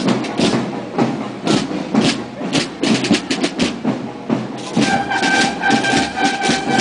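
Marching procession band of drums and brass: a steady rattle of drum strokes, and about five seconds in the brass come in together on one long held note.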